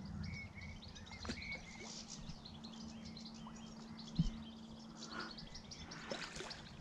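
Small birds chirping and singing in the trees, many short calls overlapping, over a faint steady low hum. A single dull thump about four seconds in.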